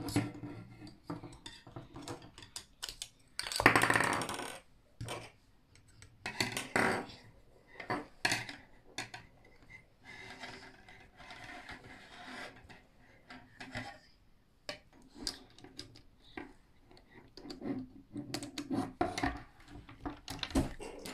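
Plastic construction-toy parts clicking and clattering as they are handled and fitted together: perforated strips, brackets, nuts and bolts knocking against each other and rubbing on a wooden table. A louder dense rattle comes about four seconds in.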